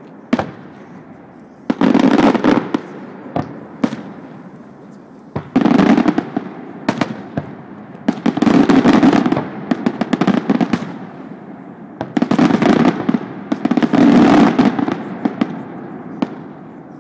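Fireworks display: aerial shells bursting in loud booms about every two to three seconds, each lasting around a second with a crackling tail, and sharp single cracks in between.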